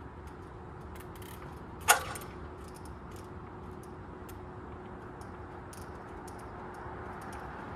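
Trials bike hopping on a boulder: one sharp knock about two seconds in as a wheel comes down on the rock, with faint light clicks and rattles from the bike, over steady traffic noise that grows near the end.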